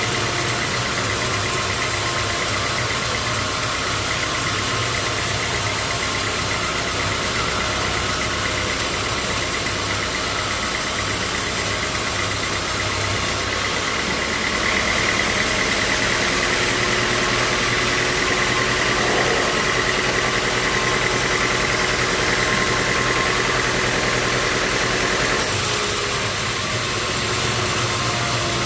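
Bandsaw mill running steadily with a held high whine. For a long stretch in the middle the sound grows a little louder and brighter, and a second, lower tone joins in.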